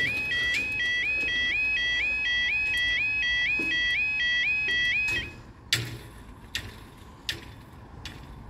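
UK level crossing's audible warning (yodel alarm) sounding a repeating rising two-note warble, about two and a half a second, which cuts off suddenly about five seconds in. A few faint sharp clicks follow.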